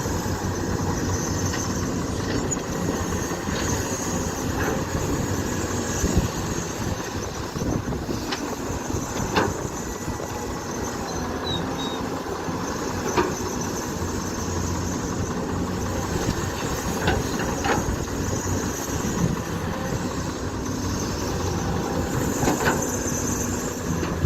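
Excavator diesel engine running steadily under work, with a handful of sharp knocks every few seconds.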